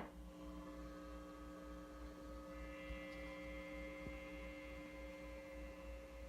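Philco Predicta radio alarm clock's speaker giving a steady mains hum with faint steady whistle tones, with no station coming through; higher whistle tones join in about two and a half seconds in.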